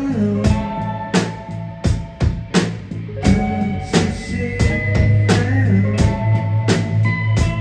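Live rock band playing an instrumental stretch: regular drum kit strokes with electric guitar over a steady bass note.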